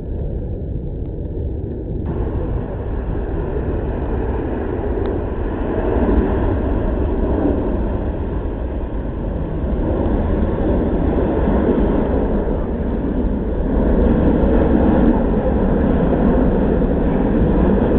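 Jet engine noise of an Airbus A380's four engines as the airliner flies slowly past at around 100 to 110 knots: a low, steady rumble that slowly grows louder.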